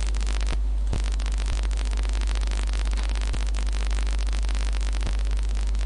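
Steady electrical mains hum and static hiss from the recording microphone, with a few faint, scattered clicks.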